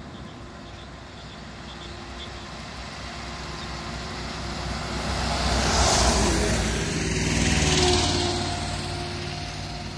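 Road traffic passing on a highway: truck engines running and tyres rushing on the asphalt, building to a loud pass-by about six seconds in and a second one near eight seconds, then fading away.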